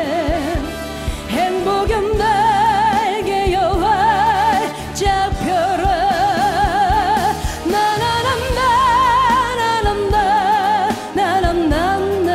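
A woman singing a Korean trot song into a handheld microphone over a backing track, holding long notes with a wide, even vibrato. A steady drum beat runs underneath.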